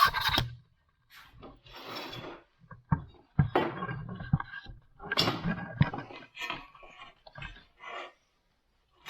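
Sheet metal being cut and worked with hand tools: a run of short, irregular scraping and rasping strokes with a few sharp clicks, separated by brief pauses.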